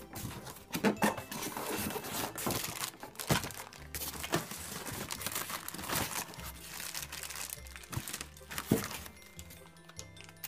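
Plastic wrapping crinkling and rustling as packaging is handled, with several sharp knocks, over background music.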